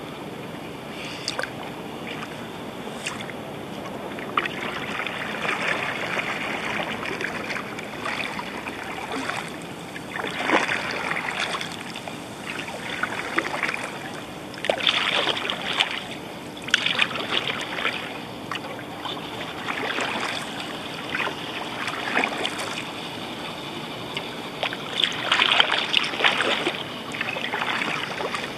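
Kayak paddle strokes dipping and splashing in calm water, an uneven stroke every second or two, over a steady hiss.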